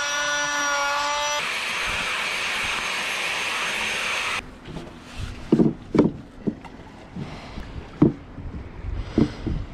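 Angle grinder with a whining pitch, then grinding into a cured fibreglass-and-epoxy brace, stopping abruptly about four seconds in. After that come a few sharp knocks as the heavy fibreglass brace is set against the boat's stern fittings.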